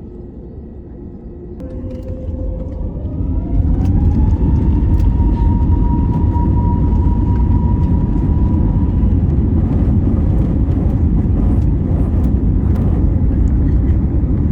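Airliner jet engines spooling up to takeoff power, heard from inside the cabin: a whine climbs over about two seconds and then holds steady above a loud, even rumble, with scattered light rattles.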